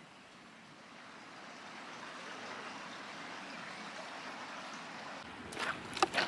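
Mountain valley stream running, a steady rush of water that swells about a second in. Near the end a few sharp footsteps cut in over it.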